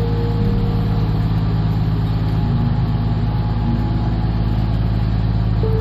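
Tour boat's inboard engine running steadily, a low, even drone.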